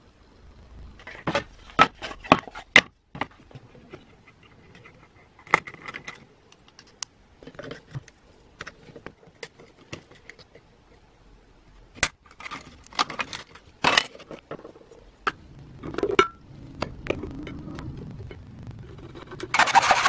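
Scattered sharp clicks, taps and knocks of small wooden and metal parts being handled and set down on a workbench. Near the end a hand saw in a miter box starts cutting through wood with fast rasping strokes.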